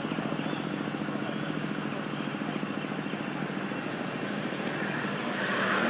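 A steady engine drone with a fast, even pulse, growing louder near the end as it comes closer.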